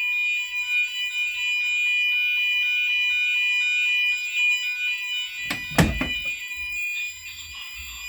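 GENT Vigilon fire alarm sounders going off after a manual call point has been pressed: a steady, high-pitched alarm tone over a layer of lower pulsing tones. A loud knock comes a little over five seconds in.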